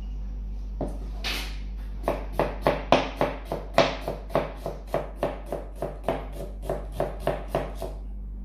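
Chef's knife slicing an onion into strips on a plastic cutting board: a steady run of knife strokes knocking the board, about three a second, starting a second in and stopping shortly before the end.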